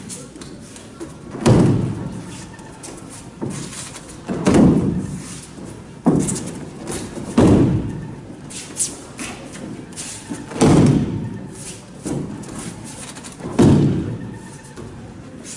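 Aikido breakfalls on tatami mats: a thrown partner's body and slapping arms hit the mat with a heavy thud about every three seconds, five times, each echoing in the hall.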